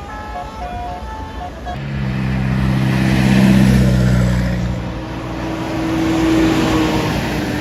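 A bus's telolet horn playing a quick tune of short notes, then a large vehicle's engine running loud, swelling up twice and easing off as it passes.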